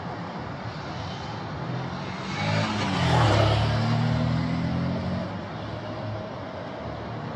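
A motor vehicle passing by. Its engine hum swells about two and a half seconds in, drops in pitch as it goes past and fades out about two seconds later, over a steady outdoor background hiss.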